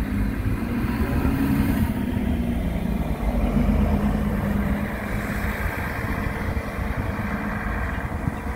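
Diesel city bus engine running as the bus drives past and pulls away. The sound is loudest about four seconds in and fades slightly after.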